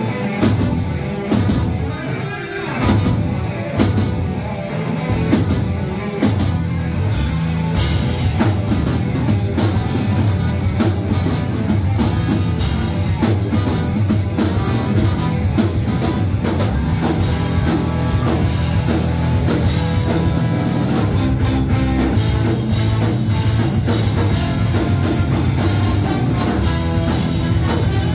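Rock band playing live with a drum kit, starting a song. It grows fuller and denser about seven seconds in as the whole band comes in.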